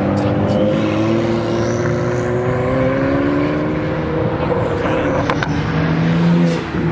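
Second-generation Acura NSX's twin-turbo V6 accelerating past and pulling away, its engine note rising in pitch. Near the end another car's engine comes in louder with a steady low tone.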